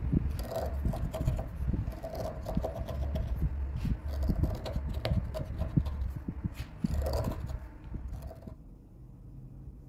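Hand-pushed carving gouge cutting and scraping into a wooden sphere, with irregular clicks and knocks of the tool against the wood. The carving sounds stop about eight and a half seconds in.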